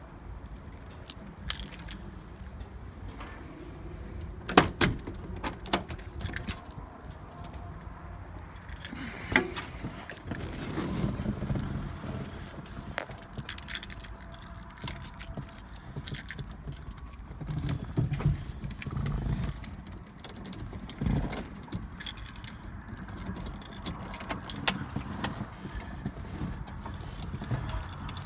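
Car keys jangling, with scattered sharp clicks and knocks and low handling rumbles as someone moves about the driver's seat of a Dodge Super Bee; the loudest click comes about four and a half seconds in. The engine is not yet running.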